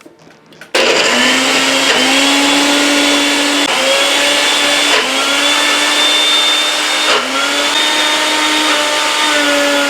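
Nutribullet Pro 900 W blender motor starting about a second in and running at full speed, its pitch briefly dipping and recovering several times as the blades work through frozen blueberries and thick yogurt with no liquid added.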